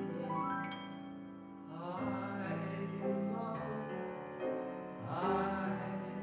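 Live band playing a show tune: sustained chords with rising piano runs every couple of seconds, and a man's singing voice at times over it.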